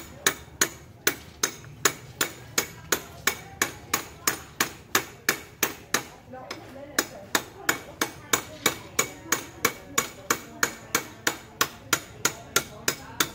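A hammer striking metal in a steady rhythm, about three sharp ringing blows a second, with a brief pause about halfway through.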